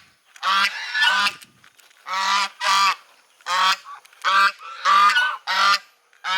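Geese honking loudly and repeatedly: about nine short, harsh calls, often in quick pairs.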